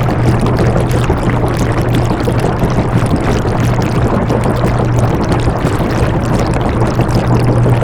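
Washing machine running: a steady low motor hum under an even rushing noise of water churning in the drum.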